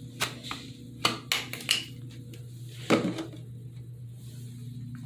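A few sharp clicks and knocks from a plastic water bottle being handled at a bathroom sink, the loudest about three seconds in, over a steady low hum.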